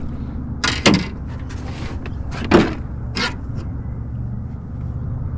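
Knocks and clunks in a small jon boat as a man shifts his weight and stands up in it: three sharp hits, about a second in, at about two and a half seconds and just after three seconds. A steady low rumble runs underneath.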